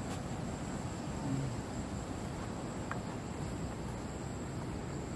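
Insects calling in one steady, unbroken high-pitched whine over a low, even background hiss of forest ambience.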